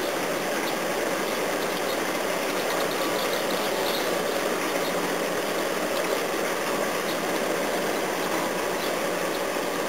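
Lattice-boom crawler crane's engine running steadily while it holds a narrowboat in its lifting straps.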